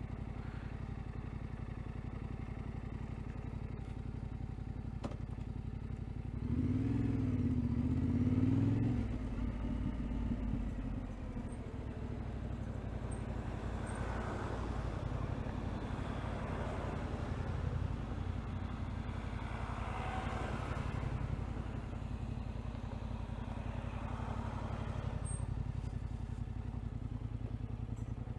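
Vehicle engine running steadily as it is driven along a rough track. About a quarter of the way in it grows louder for a couple of seconds, its pitch rising and wavering, then settles back to a steady run.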